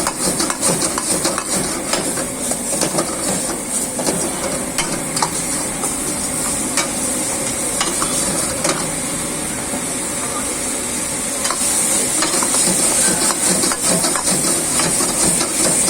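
Veg manchurian sizzling as it is stir-fried in a wok, with a steady hiss and many short clicks and scrapes of a metal ladle against the pan. The sizzle grows louder about three-quarters of the way through.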